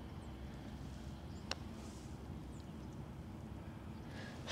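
A single faint click of a putter striking a golf ball, about a second and a half in, against a quiet, steady background.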